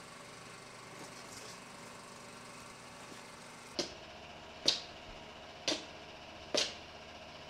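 Four sharp hits about a second apart over a faint steady background hiss, each with a short ring.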